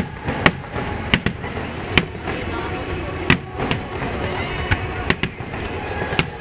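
Aerial firework shells bursting in the sky: about a dozen sharp bangs at uneven intervals, some close together, over the chatter of the watching crowd.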